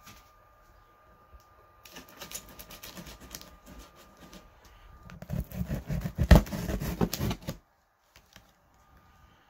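Knife blade slitting clear plastic packing tape along a cardboard box seam: a crackling run of small ticks, then a louder, coarser stretch of cutting from about five seconds in that stops abruptly after about two and a half seconds.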